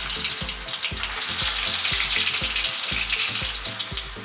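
Spoonfuls of potato, spinach and chickpea-flour pakora batter shallow frying in about a centimetre of hot oil in a stainless steel pan: a steady sizzle.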